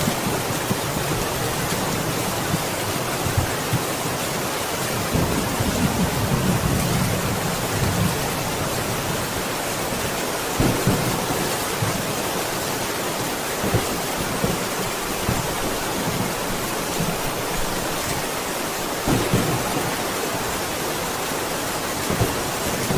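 Steady heavy rain with low rolling thunder in the first several seconds, and a few brief louder spatters.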